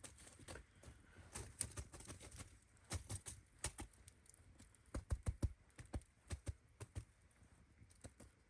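Irregular sharp clicks and knocks, coming in quick runs about three seconds in and again around five seconds in.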